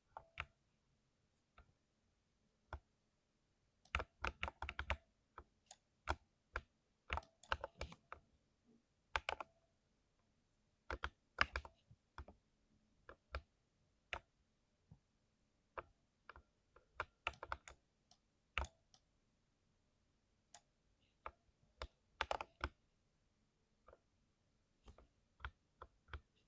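Typing on a mechanical keyboard fitted with Dreamy Nights PBT double-shot keycaps: sharp keystroke clicks in irregular clusters, with short pauses between runs.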